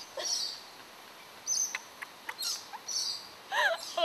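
Women laughing hard in broken bursts of high, squeaky giggling, with a fuller burst of laughter near the end.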